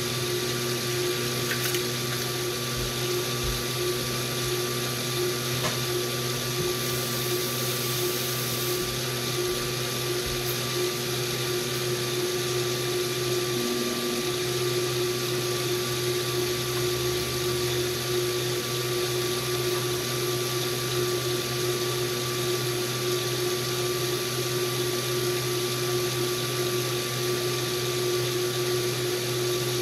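KitchenAid Multicooker stir tower motor running steadily with a constant hum, its paddle turning through a chunky mixture in the pot.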